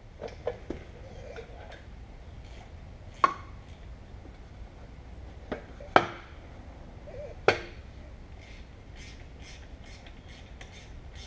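Sharp metal clanks and clinks from hand tools and steel parts being handled at a tractor's rear axle: three loud clanks a second or two apart around the middle, with lighter clicks before them. A run of faint, quick light ticks follows near the end.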